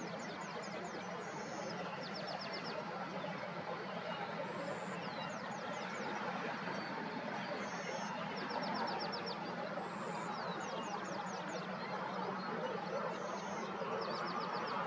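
Birds singing outdoors: short high-pitched phrases of quick falling notes and brief trills come every two to three seconds over a steady, dense background noise.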